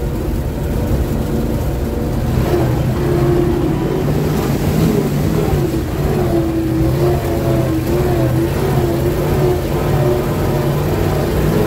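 GAZ-66 truck's V8 petrol engine running under load, heard from inside the cab, its pitch rising and falling a little with the throttle as the truck drives over a rough dirt track.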